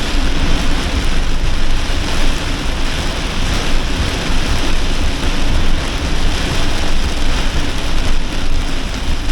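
Torrential rain pounding on a campervan, heard from inside: a loud, steady, dense hiss of rain with no let-up.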